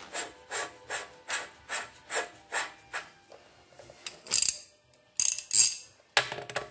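Ratchet wrench screwing in the hydraulic pump drain plug. First comes an even run of ratcheting strokes, about two and a half a second. Then, from about four seconds in, three louder and sharper bursts of ratchet clicking.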